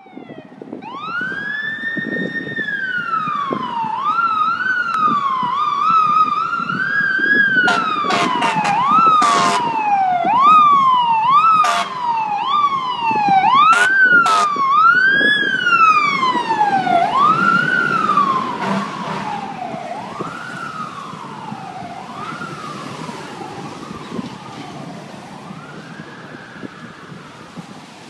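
Fire engine siren winding up and then cycling up and down about once a second, each rise quick and each fall slower. Several short horn blasts sound over it between about 8 and 14 seconds in. The siren fades over the last ten seconds as the truck moves away.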